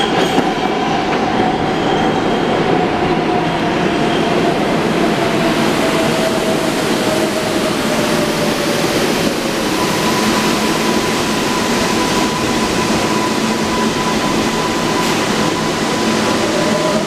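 A New York City Subway R188 train pulls into a station and slows to a stop, with a steady rumble of wheels on rail. A motor whine falls slowly in pitch as the train brakes. In the second half a steadier, higher tone holds while it comes to rest.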